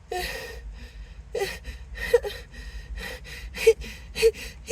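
A person's sharp, breathy gasping in-breaths, about five or six in a row with short gaps between them: the hitching build-up to a sneeze during a sneezing fit.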